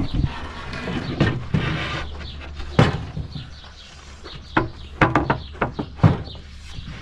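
Wooden boards knocking and scraping as a shelf frame is handled, with a quick cluster of sharp knocks about five to six seconds in. Small birds chirp in the background.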